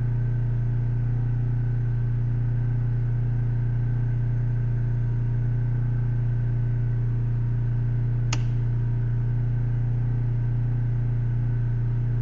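Gasoline portable generator engine running steadily under load as it powers the house's circuits, a constant drone. A single sharp click about eight seconds in, a circuit breaker being snapped on at the panel.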